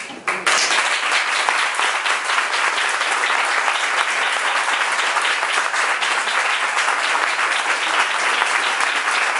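A roomful of people applauding: dense, steady clapping that breaks out about half a second in, right after a speech ends.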